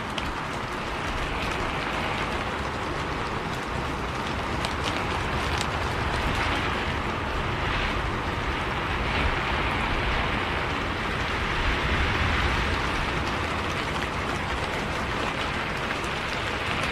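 Rain on a moving bus: a steady hiss of rain with scattered drop ticks over the low rumble of the bus running.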